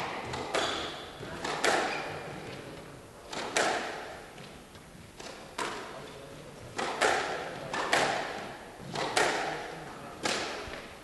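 Squash rally: the rubber squash ball is struck by the rackets and smacks the walls, about eight sharp hits one every one to two seconds. Each hit rings on briefly in the hall.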